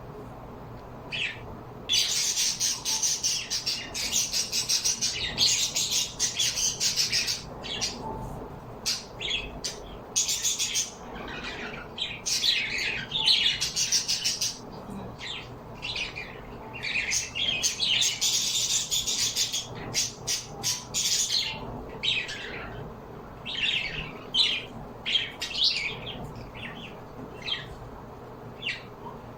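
Birds chirping and squawking in bursts of high calls, thick and busy for a few seconds early on and again just past the middle, with scattered single chirps in between.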